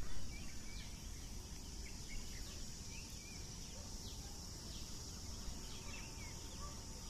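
Insects buzzing as a steady high drone, with short bird chirps scattered throughout.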